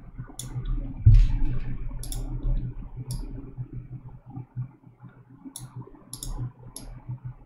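Computer mouse clicking about ten times, some clicks in quick pairs, over a low room murmur.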